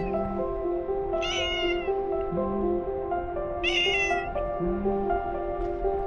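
A cat meowing twice, short falling calls about a second and a half apart from each other's neighbours, over background music.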